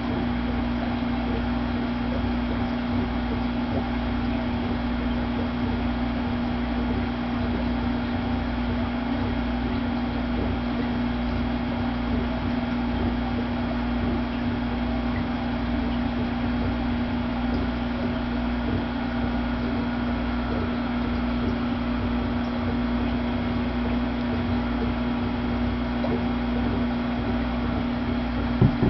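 A steady hum with a constant hiss, and a single click near the end.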